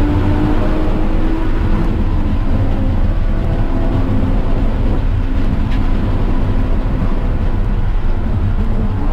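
Car engine running at track pace under heavy wind and road noise, its note falling and rising with throttle and gear changes.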